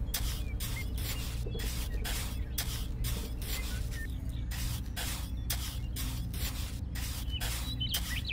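Tiny metal hand trowel scraping and spreading wet cement mortar, in repeated short strokes about two or three a second.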